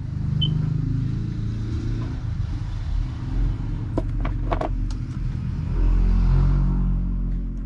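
A motor vehicle engine running, a steady low rumble that grows louder for about a second near the end. A few light clicks come about four seconds in.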